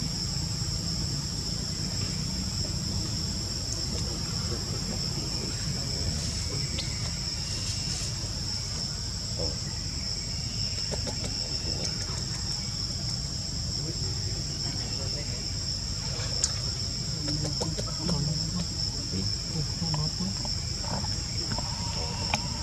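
Insects droning steadily in two constant high-pitched tones, over a low background rumble.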